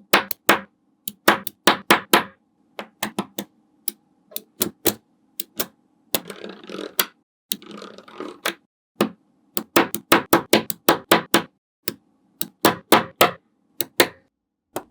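Small magnetic balls clicking sharply as they snap onto each other, in irregular runs of separate clicks. About six and eight seconds in there are two brief stretches of denser rattling clatter.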